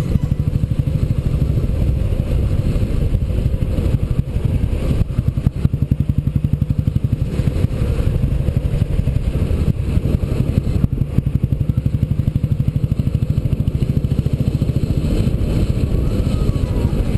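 Royal Enfield single-cylinder motorcycle engine running at a steady cruise, heard from on the bike as a rapid, even run of exhaust pulses.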